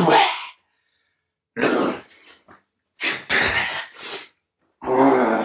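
A man's strained yell that breaks off about half a second in, then four short, forceful shouting grunts with hard breaths: the effort noises of hurling something with all his strength.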